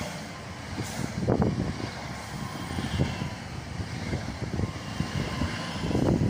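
Electric multiple unit passing close at speed: steady rolling rumble of wheels on the rails, with louder swells about a second in and near the end.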